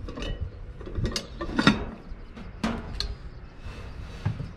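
Lodge 8-inch cast iron camp Dutch oven being handled, its wire bail handle and lid clinking and knocking against the iron in a handful of sharp, irregular clanks, the loudest about a second and a half in.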